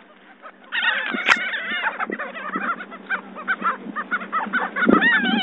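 A flock of birds calling in a dense, overlapping chorus of short calls that breaks out suddenly about a second in, as the birds crowd in for thrown food.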